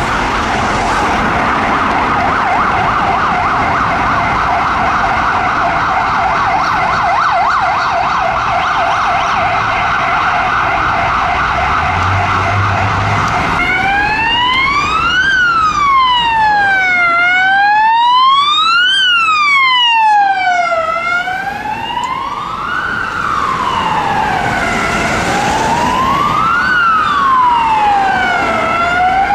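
Emergency vehicle sirens. A rapid yelp runs for about the first thirteen seconds, then gives way to a slow wail that rises and falls about every four seconds, over traffic noise.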